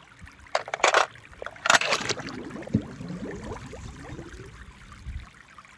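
Water sloshing and gurgling, with two short splashy bursts in the first two seconds followed by a run of bubbling gurgles.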